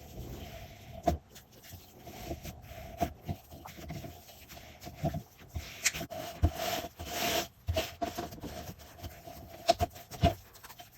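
Slime being squished and stretched by hand, with irregular sticky clicks and pops and short swishing rubs.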